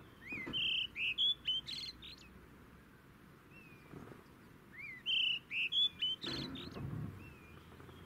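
Brown-hooded kingfisher calling: two phrases, each a quick series of short, high whistled notes, the second starting about four and a half seconds after the first.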